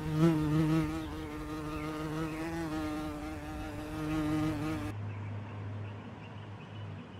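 A flying insect buzzing, its pitch wavering up and down. About five seconds in, the buzz gives way to a lower, fainter hum.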